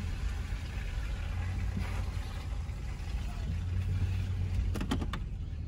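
Off-road SUV's engine running low and steady, heard from inside the cabin while driving slowly on a snowy track. A few quick clicks come about five seconds in.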